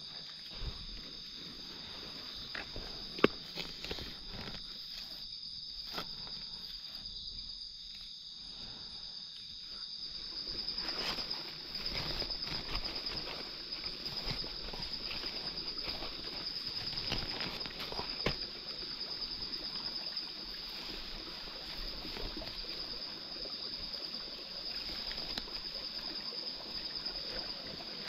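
A steady high-pitched insect drone, with rustling and scattered sharp snaps of dry leaf litter and twigs, the loudest snap about three seconds in. The rustling grows busier from about ten seconds in.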